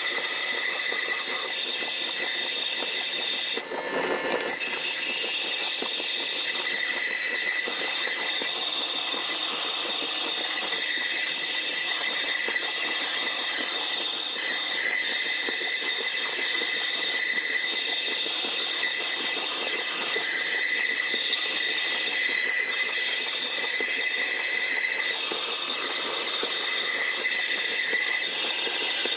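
Vapor honing cabinet blasting an aluminum carburetor body: a steady hiss of wet abrasive slurry and compressed air from the nozzle, with a steady high whistle over it and a brief interruption about four seconds in.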